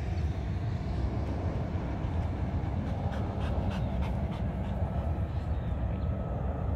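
A dog panting over a steady low rumble of wind on the microphone.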